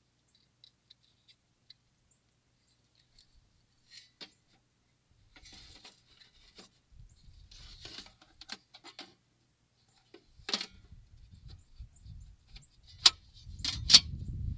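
Hands fitting wires and connectors inside a deer feeder's metal control box: light rustling and small clicks, then two sharp metallic clacks near the end as the box cover is shut.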